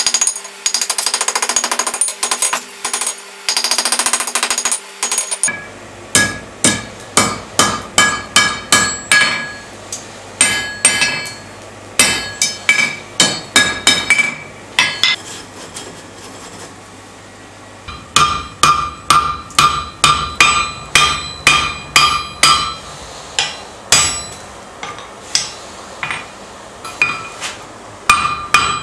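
Hand hammer striking hot steel bar stock on the horn of an anvil, bending it into a ring: a quick run of blows at first, then steadier strikes about two or three a second, many leaving a ringing anvil tone, with a short pause in the middle.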